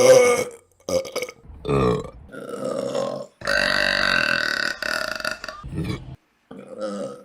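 Women burping, a run of about six separate belches one after another, the longest drawn out for about a second and a half near the middle.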